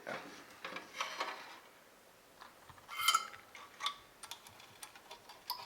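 Small clicks, taps and scrapes of hand tools working on a car ECU's circuit board to clear solder from a pad, with one louder metallic click that rings briefly about three seconds in.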